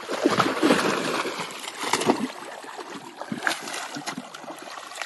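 Water splashing and sloshing as a young elephant calf kicks and rolls in a shallow muddy pool. The splashing is heaviest in the first two seconds, then softer.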